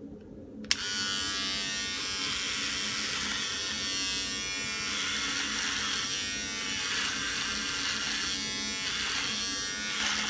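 Electric hair clipper switched on with a click under a second in, then buzzing steadily. Its sound changes as the blades are pushed up into a long, thick beard, cutting the hair.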